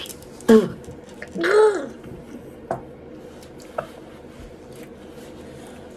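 A person's wordless reaction to tasting gummy candy: a short exclamation about half a second in, then a drawn-out groan that rises and falls in pitch. After that only a couple of light clicks.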